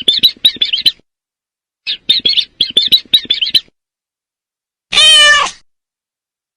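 Two quick runs of high bird chirps, then a single loud cat meow about five seconds in, a slightly falling call lasting about half a second.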